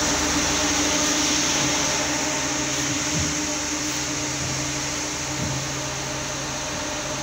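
Steady mechanical hum with a constant high hiss from machinery running in a textile mill, holding several fixed low tones.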